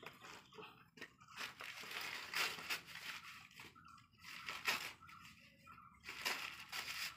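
Irregular crackling and crunching of dry kindling as a small clay wood-fired stove is stoked and fed by hand.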